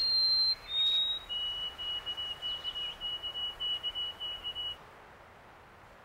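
A songbird singing a whistled song: a high clear note, a slightly lower note, then a long run of quickly repeated notes at a steady lower pitch that stops near five seconds in.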